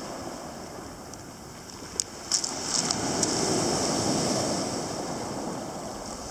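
Sea waves washing in on the shore, the surf swelling and falling away, with a few sharp clicks about two seconds in.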